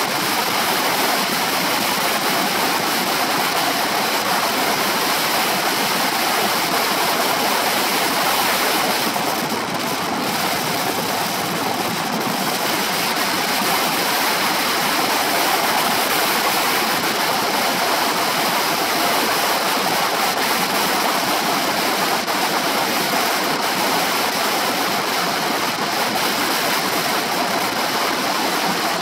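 Steady wind rush buffeting the shoulder-mounted camera's microphone on a moving Honda PCX 125 scooter, easing briefly about ten seconds in.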